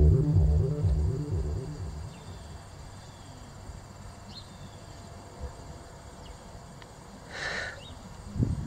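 Music with a low pulsing beat fades out over the first two seconds, leaving quiet outdoor ambience with a few faint, short high chirps. A brief harsher call sounds about seven and a half seconds in, and low rustling noise comes in at the very end.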